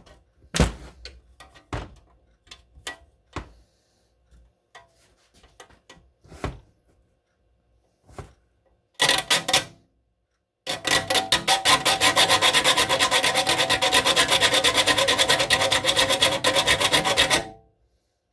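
Triangular saw file rasping across a hand saw's teeth while they are sharpened: scattered light clicks and taps as the file is set in place, a short stroke about nine seconds in, then about seven seconds of steady, fast rasping chatter that stops abruptly near the end.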